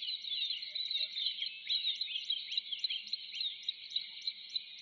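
Wetland animal chorus: a steady, high-pitched chirping drone, with short falling chirps over it and a regular ticking about four times a second.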